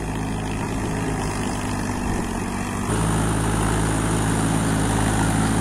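Tractor engine running steadily under load. About three seconds in the sound steps up abruptly, louder and closer, with a thin high whine added.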